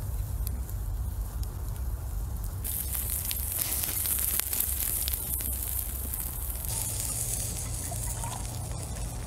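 Cooking fire with scattered crackles over a low steady rumble, and a loud hissing sizzle that starts about three seconds in and dies down about four seconds later.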